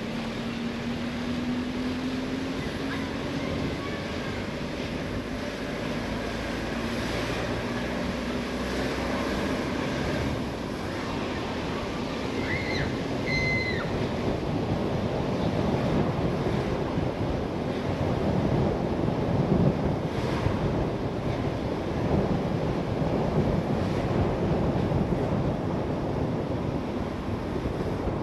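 Car driving along, with a steady rush of road and wind noise. A faint engine tone rises in pitch over the first few seconds, and the rushing grows louder after about ten seconds as the car speeds up. Two short high chirps come about twelve seconds in.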